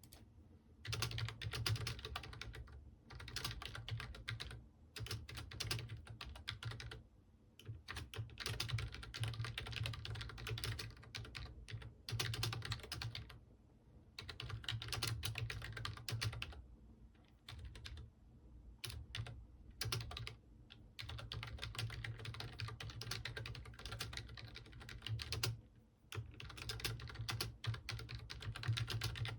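Computer keyboard typing: runs of rapid keystrokes a few seconds long, broken by short pauses.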